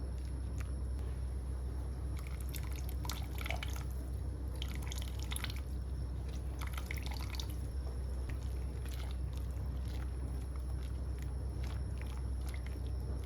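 Liquid dripping and trickling in three short spells of small crackly ticks, with a few single clicks, over a steady low hum.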